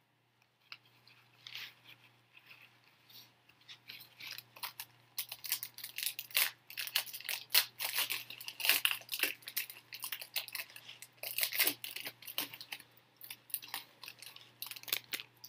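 Trading card pack wrappers being torn open and crinkled while the cards are handled: a run of irregular rips and crackles, sparse at first and thicker from about five seconds in.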